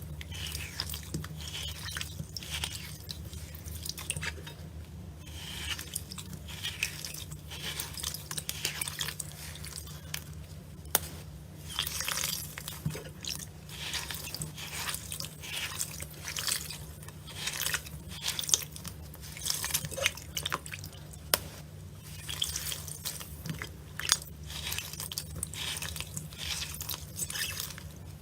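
Slime being squeezed and poked by hand, giving irregular wet clicks, crackles and squelches, over a steady low hum.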